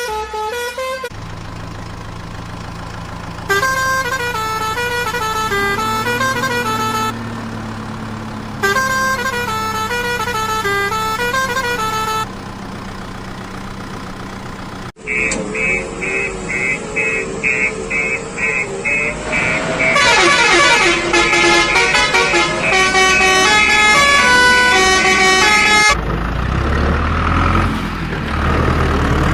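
Electronic tunes and sound effects from battery-powered toy construction vehicles: stepped, beeping melodies over a steady motor hum, then a rapid beeping of about three pulses a second. The sound changes abruptly a few times between spliced clips.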